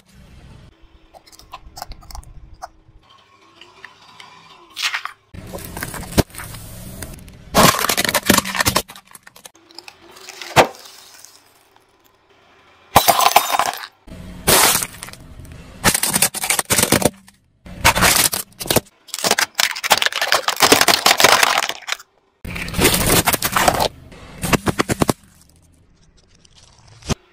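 A car tyre crushing objects on asphalt, heard as a string of short clips of cracking, crunching and breaking of glass and plastic, each clip starting and stopping abruptly.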